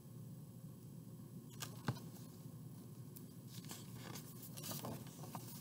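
Faint rustling and crinkling of a large picture book's paper pages as they are turned by hand, after a single sharp tap a little under two seconds in.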